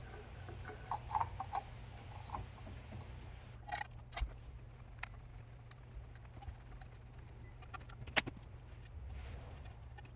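Scattered light clicks and taps from hands handling a Waterway SMF pool pump's seal plate and diffuser assembly, with one sharper click about eight seconds in, over a low steady hum.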